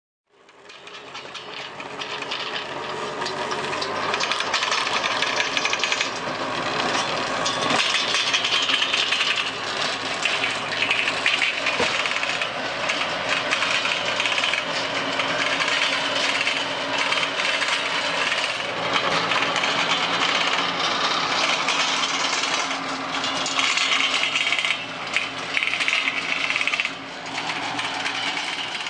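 Tractor engine running under load while its rear-mounted rotary tiller churns through soil, a steady mechanical din with rattling from the implement. It fades up over the first few seconds.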